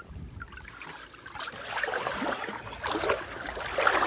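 Pool water splashing and sloshing close by, growing busier and louder from about a second and a half in, as a Vizsla puppy is put into the pool and paddles.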